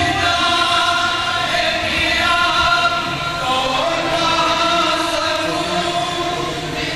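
Male voices chanting a devotional recitation together in long, drawn-out melodic phrases.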